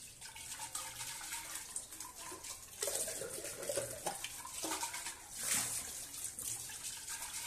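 Kitchen tap running, its stream splashing into a stainless steel sink and onto the plastic filter housing held under it, the splashing swelling and dipping as the housing is moved.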